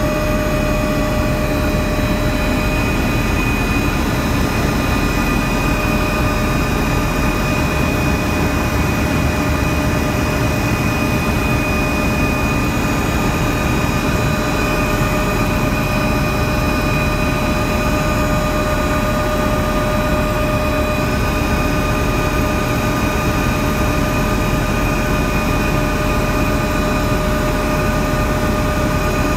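Helicopter in flight, heard from inside the cabin: steady engine and rotor noise with a constant high whine over it.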